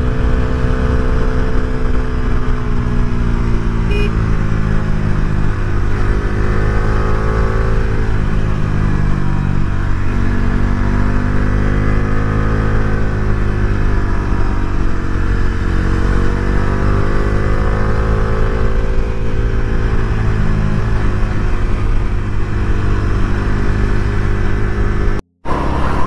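Bajaj Dominar 400's single-cylinder engine running steadily at cruising speed. Its pitch rises and falls gently with the throttle over a low steady rumble, and the sound cuts out for a moment near the end.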